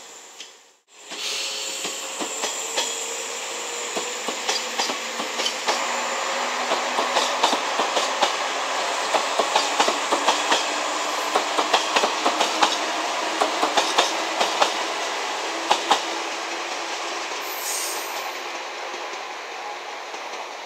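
JNR 381 series electric train running past and away, its wheels clicking rapidly over the rail joints. A short high wheel squeal comes near the end as the sound slowly fades. The sound cuts out briefly just under a second in.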